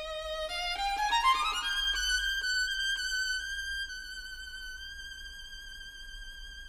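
Background music: a single melody instrument plays a quick rising run of notes, then holds one long high note.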